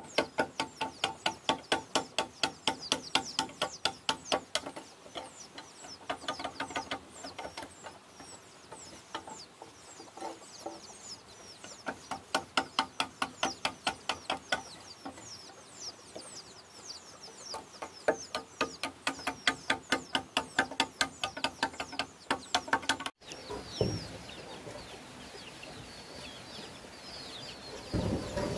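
Hand saw cutting through a wooden plank, in runs of quick even strokes about three a second. The sawing stops about two thirds of the way in, leaving birds chirping, with a knock of wood near the end.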